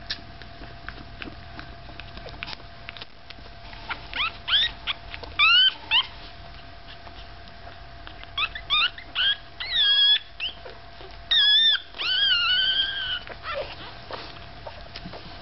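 Newborn Staffordshire Bull Terrier puppy squeaking in short, high-pitched squeals that come in bouts, ending in a longer wavering cry near the end.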